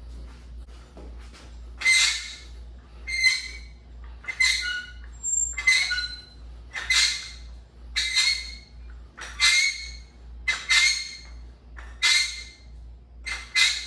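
Sharp, hissing exhales, one with each curl rep, about one every 1.3 seconds, ten in a row starting about two seconds in.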